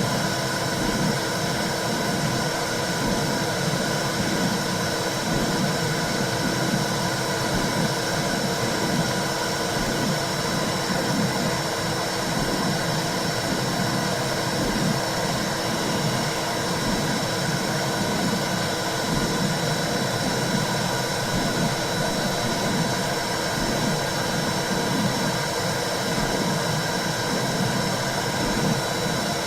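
Womb-sound track for soothing babies: a steady whooshing hiss with an uneven low rumble that keeps swelling and fading underneath.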